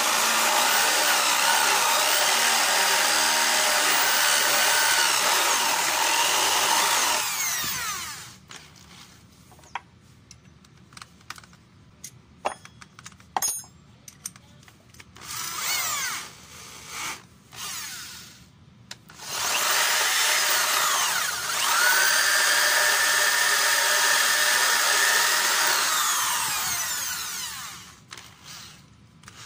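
Electric drill boring into a wooden board with a 1-1/4-inch spade bit, running steadily for about seven seconds, then winding down. Clicks and taps follow as the bit is changed in the chuck, with a few short spurts of the motor. About two-thirds of the way in the drill spins up again, runs steadily for about seven seconds and winds down near the end.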